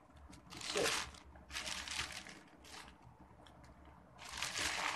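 Gift packaging crinkling and rustling in a few short bursts as it is handled and opened, with quieter gaps between.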